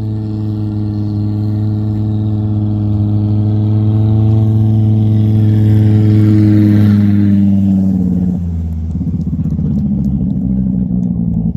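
Race car engine held at a high, steady note and growing louder, then the throttle comes off about two-thirds of the way in and the pitch falls. The exhaust burbles and crackles on the overrun as the car slows after the finish.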